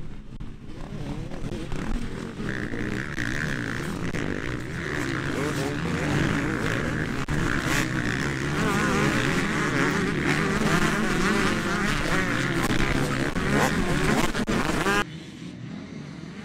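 Several motocross bikes racing in a pack, their engines revving hard with many overlapping rising and falling pitches, growing louder as they come closer. Near the end the sound drops suddenly to a single bike's engine, quieter and farther off.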